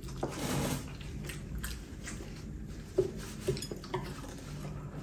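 Chopsticks and a spoon clinking against ceramic bowls at a meal: three sharp clinks about three seconds in, the first the loudest, after a brief soft rustle near the start.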